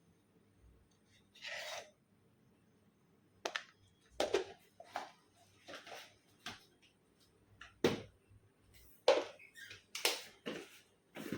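Short, irregular scrapes and taps of a spoon and spice containers as ground spices are put over cubed paneer for a marinade. They are sparse at first and come more often in the second half.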